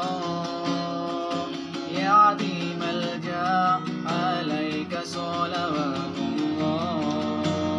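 A man singing a sholawat (Islamic devotional song) with a strummed acoustic guitar accompaniment.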